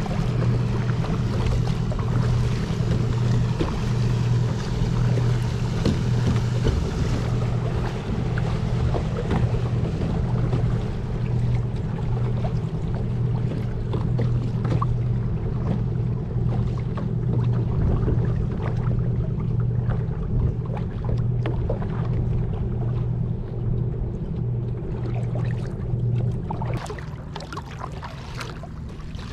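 Kayak paddling on open water: paddle strokes and small splashes of water against the hull, over a steady low hum. The hum drops away and the sound gets quieter near the end.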